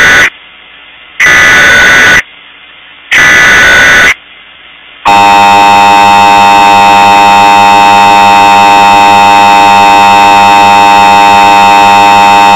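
Emergency Alert System SAME header: the end of one burst of warbling data tones and then two more, each about a second long and about a second apart. About five seconds in, the loud, steady two-tone EAS attention signal begins. Together they mark the start of an EAS Civil Emergency Message.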